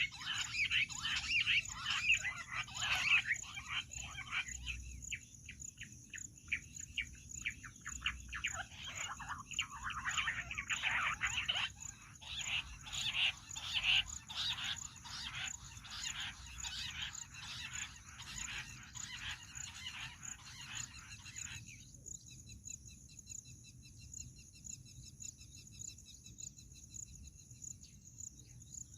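Bush quail calling: dense runs of rapid, chattering notes, with a lull a few seconds in. About 22 s in they cut off abruptly, giving way to a thinner, high, fast-repeating trill. A steady high-pitched tone runs underneath throughout.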